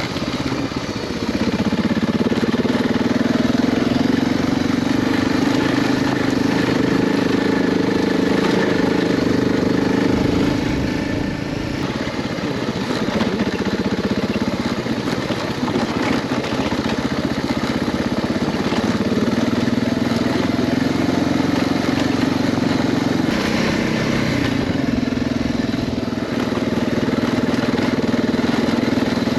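Dual-sport motorcycle engine running while riding a dirt trail, with wind and tyre noise. The engine note holds steady, eases off about ten seconds in, wavers for several seconds, then settles back to a steady pitch.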